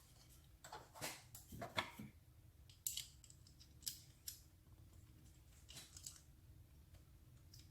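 Faint, scattered light clicks and small rattles, a dozen or so at uneven intervals, from parts and tools being handled during ignition coil replacement.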